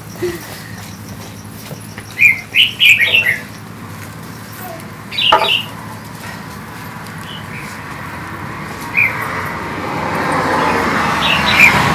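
Birds chirping in short clusters of quick high notes, several times over a steady low background rush that grows louder near the end.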